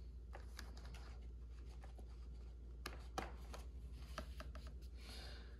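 Faint, scattered clicks and light rubbing from hands pressing a main landing gear cover into place on an RC jet's fuselage, over a low steady hum.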